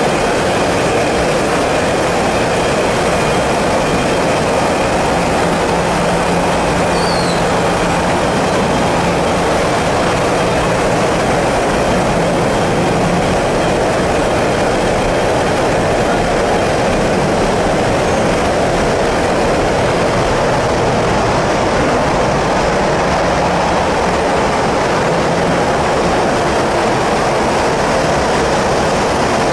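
Steady, loud running noise of a frozen french fries production line: an even wash of machine and fan noise with a faint low hum, unchanging throughout.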